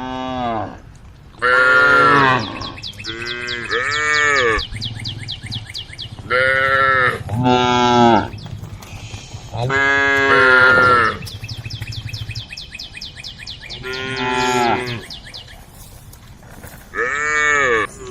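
Cattle mooing again and again, about nine calls, each rising and then falling in pitch: cows calling to the herd. A faint, rapid pulsing buzz runs between the calls.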